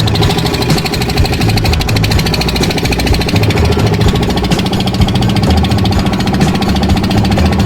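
Small boat engine running steadily at a constant speed, loud and close, with a fast, even pulsing beat.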